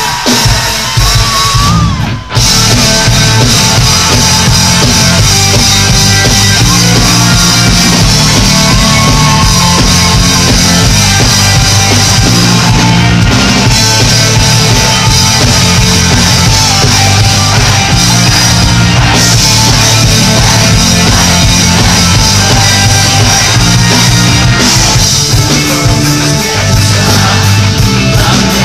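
Rock band playing live, loud electric guitars and drum kit. There is a brief break about two seconds in, then the full band plays on steadily.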